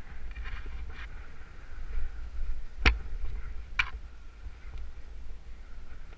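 Two sharp clicks about a second apart from a rappeller's gear during a rope descent, over a low steady rumble.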